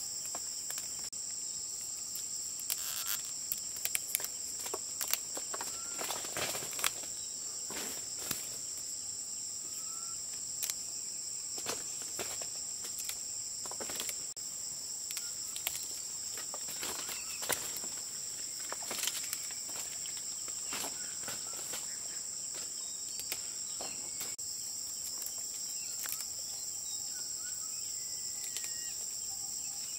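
Insects drone steadily at a high pitch throughout. Irregular short clicks and rustles come and go over it, busiest in the first several seconds.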